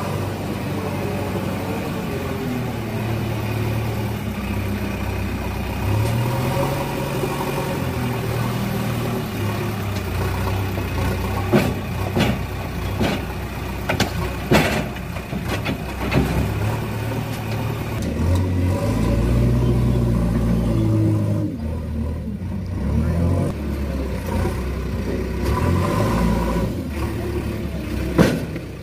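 JCB backhoe loader's diesel engine working under load, its pitch rising and falling again and again as the loader bucket lifts and dumps soil. A few sharp knocks come in the middle.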